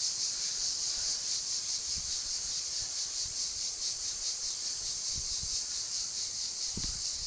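Cicadas singing in a steady chorus: a continuous high-pitched buzz that pulses rapidly.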